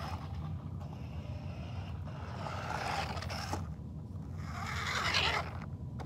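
Sharper Image Thunder Tumbler remote-control toy car driving over carpet, its small electric motor and gears whirring, swelling louder twice, about halfway through and near the end.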